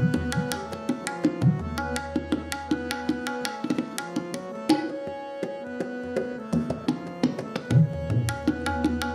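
Tabla solo: fast, dense strokes on the dayan and bayan, with deep, pitch-bending bass strokes on the bayan swelling twice, over a steady melodic harmonium accompaniment (lehra).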